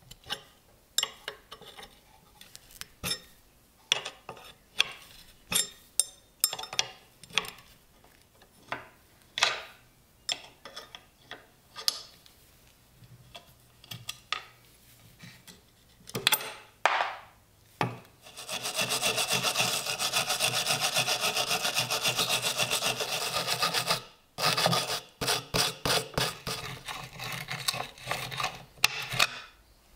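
Open-end wrench working rusty nuts loose on an old tobacco cutter: a string of short metallic clicks and scrapes, with about six seconds of continuous grating rasp a little past the middle.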